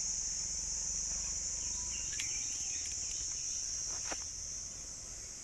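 Steady, high-pitched insect chorus. A few faint clicks sound in the middle.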